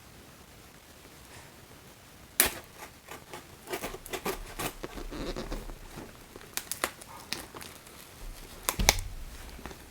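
Tough mystery-box packaging being cut and pried at with a dull knife: irregular clicks, scrapes and crinkles, with a sharp snap about two and a half seconds in and another near the end.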